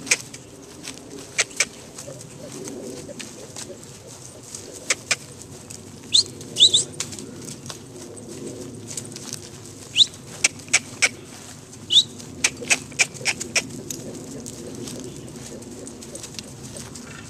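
Small birds chirping: short quick sweeping notes and sharp clicks at irregular moments, busiest near the middle, over a low steady background rumble.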